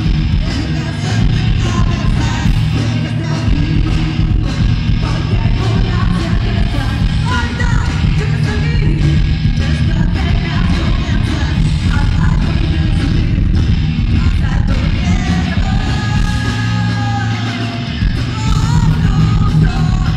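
Live rock band playing loud, with electric guitars and a woman singing, heard from the audience in a concert hall.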